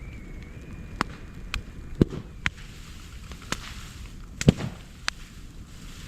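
Moso bamboo burning in an open fire, crackling with sharp pops and cracks, about seven in six seconds; the loudest come about two seconds in and about four and a half seconds in.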